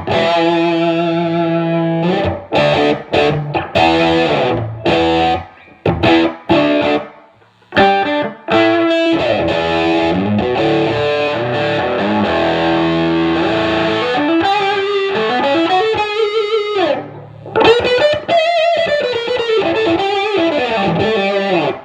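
Fuzz-distorted electric guitar: a Les Paul's humbuckers through a Fuzz Face / Tone Bender MK1.5 hybrid pedal, its blend set toward the Tone Bender side, into a 1969 Fender Bassman. Chords and riffs with short stops between phrases, then bent notes over the last few seconds.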